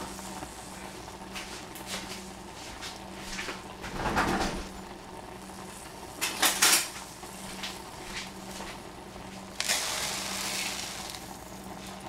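Kitchen utensils and containers clattering off to the side: a knock about four seconds in, a couple of sharp clinks around six and a half seconds, and a rustle lasting about a second near ten seconds, over a steady low hum.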